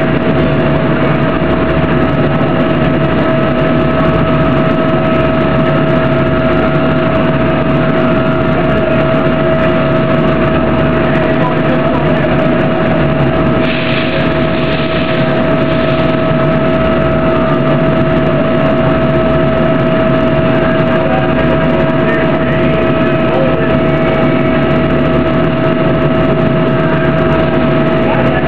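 Slurry dump station machinery running with a steady drone and a constant whine as its bin tilts. A short burst of hiss comes about halfway through.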